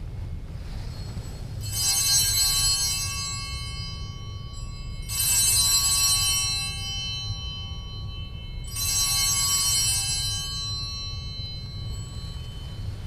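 Altar bell rung three times, about three and a half seconds apart, at the elevation of the chalice; each ring is bright and high and dies away slowly. A steady low hum lies underneath.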